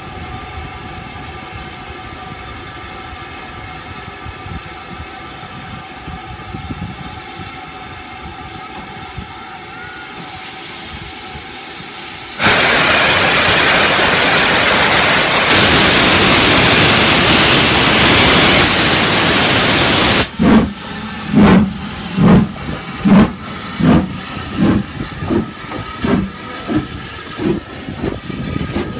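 BR Standard Class 5 4-6-0 steam locomotive No. 73129, with Caprotti valve gear, standing with a steady lower hum. About twelve seconds in comes a sudden loud hiss of steam from the open cylinder drain cocks, lasting about eight seconds before it cuts off. Then the exhaust beats begin, slow at first and quickening as the locomotive pulls away.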